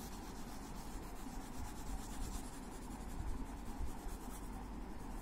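A dark crayon shading on paper, rubbed back and forth in quick, even strokes with a steady scratchy sound.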